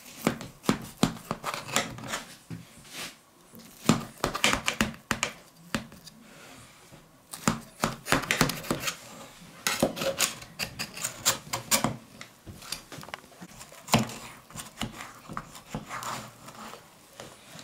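Knife run around the inside wall of a metal springform pan, scraping and clicking against the metal in many short irregular strokes as it loosens the baked apple cake from the pan.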